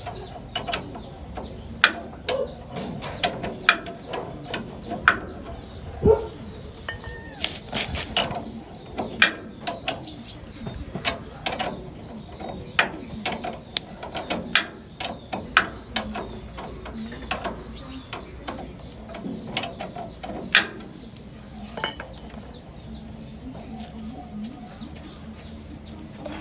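Ratcheting wrench clicking in short, irregular strokes as it loosens the nut on a jeep's tie rod end. The clicks stop a few seconds before the end.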